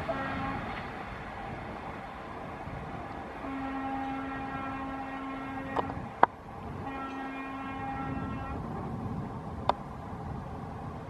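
Train horn sounding three steady blasts, a short one just after the start, then a long one of about two and a half seconds and another of about a second and a half, over the rumble of trains on the line. A few sharp clicks come between the blasts and again near the end.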